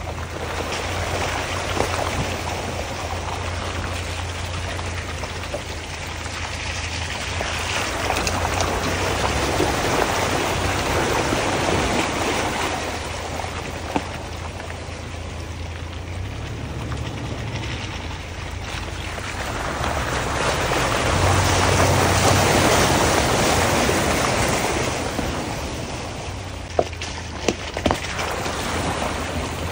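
Off-road truck crawling through muddy puddles: water and mud splash and slosh around the tyres over a low, steady engine drone. The splashing swells loudest about two-thirds of the way through, and a few sharp knocks come near the end.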